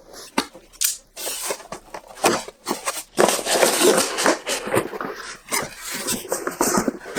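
Box packaging rustling and scraping, with scattered clicks and knocks, as the contents are handled and lifted out; busiest in the second half.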